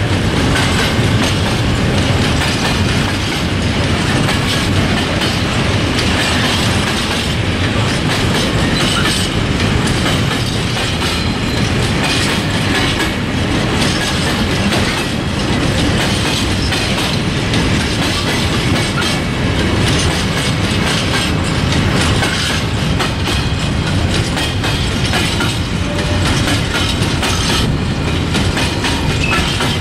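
Long freight train of open-top high-sided wagons rolling past close by: steady loud rumble of steel wheels on the rails with a continuous clickety-clack.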